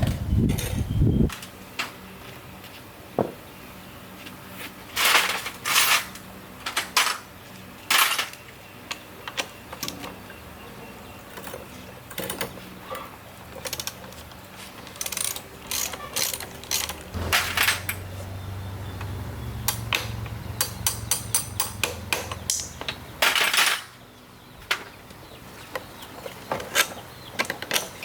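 Hand tools and metal parts clinking and knocking in irregular sharp strikes during motorbike repair work. A low steady hum runs for about six seconds past the middle.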